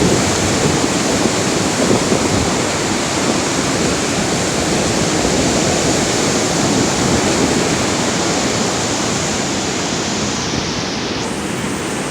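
Heavy surf rushing steadily onto the beach, with no let-up. The sea is still rough from lingering typhoon winds.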